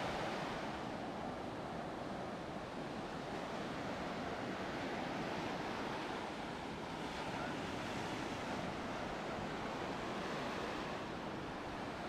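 Ocean surf washing onto a beach in a steady, unbroken rush of noise, with wind on the microphone.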